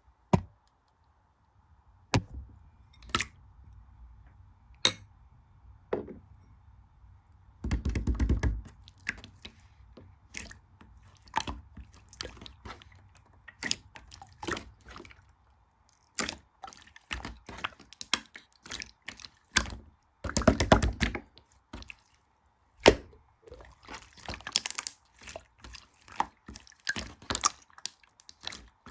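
Slime being squeezed and folded by hand, making wet clicks and popping air bubbles, with two longer runs of dense crackling, one about eight seconds in and one about twenty-one seconds in.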